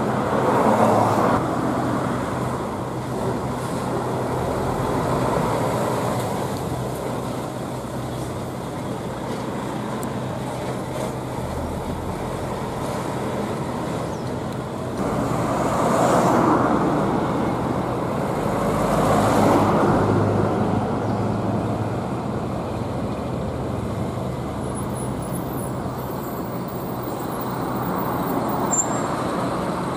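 Diesel trucks passing by one after another, over steady traffic noise and a constant low engine hum. The sound swells as each goes by: about a second in, and twice about halfway through.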